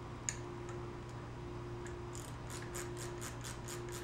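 Ratchet wrench clicking as a nut is run on: one sharp click just after the start, then from about two seconds in an even run of quick clicks, three or four a second. A steady low hum sits underneath.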